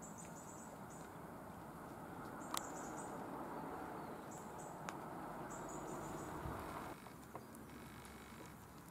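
Faint outdoor ambience: a steady low rustle with short, high-pitched chirps now and then and a couple of sharp clicks. It drops a little quieter about seven seconds in.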